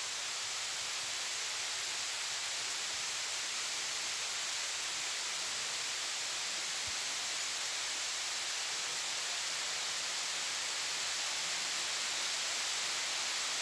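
Steady hiss of falling rain, even and unbroken throughout.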